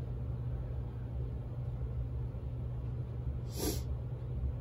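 Steady low electrical hum from the bench setup, with one short sniff of breath about three and a half seconds in.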